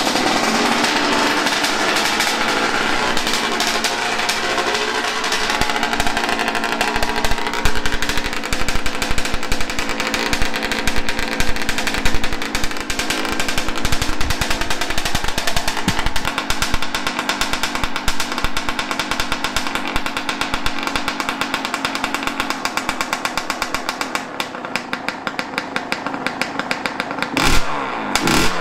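Yamaha YZ125 two-stroke single-cylinder dirt bike engine, just kick-started, running with the throttle blipped, with two sharp revs near the end. The owner says it runs better on a 40:1 premix.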